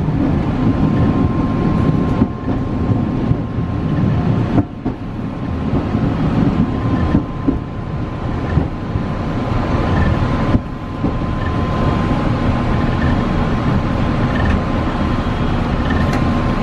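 Streetcar running on its rails, heard from inside the car: a steady low rumble from the wheels and running gear, with a faint steady high tone through most of it.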